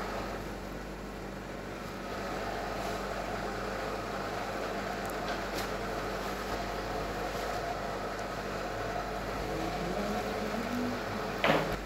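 Steady hum of running commercial kitchen equipment, with a few faint clicks and a short knock near the end.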